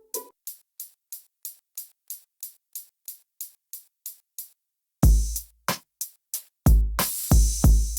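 Hip-hop background music built on a drum machine: about four seconds of hi-hat ticks on their own, a short break, then heavy bass kicks and the full beat drop back in about five seconds in.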